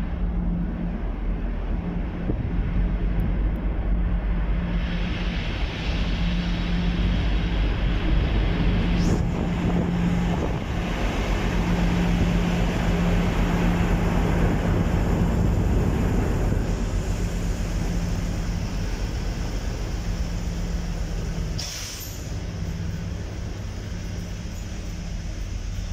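Class 56 diesel locomotive drawing slowly along a station platform, its engine running with a steady low drone under wheel and engine rumble that swells as it passes close. About 22 seconds in comes a short, sharp hiss of air from the brakes as it slows.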